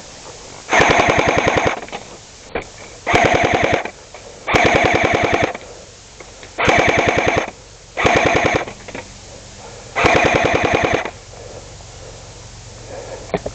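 Airsoft electric gun firing six short full-auto bursts, each a rapid, even chatter of shots lasting about a second, with pauses of one to two seconds between them.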